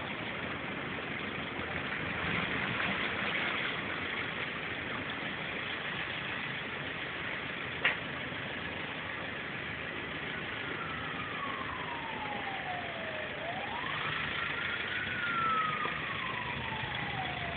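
A car's engine running steadily as it drives slowly through floodwater, with the wash of water against the car, heard from inside the cabin. A single sharp click comes about eight seconds in, and in the second half a lone wailing tone slowly falls, rises and falls again.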